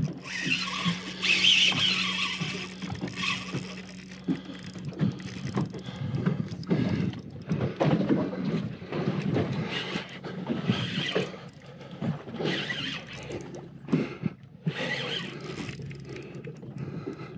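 Shimano Stradic 2500 spinning reel under a heavy fish: the drag ticking and the handle being wound in irregular spells as line is lost and gained, with a hissy stretch of drag in the first few seconds.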